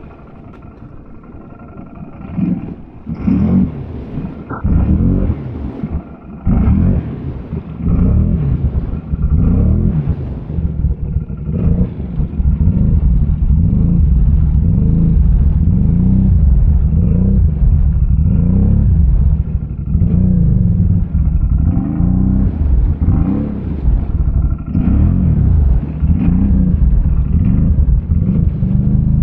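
ATV engine revving up and down again and again, starting fairly quiet and growing loud and steady about halfway through.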